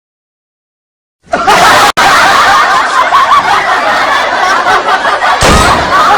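Silence for about a second, then a loud, dense laughing sound effect of many wavering voices at once, running on without a break.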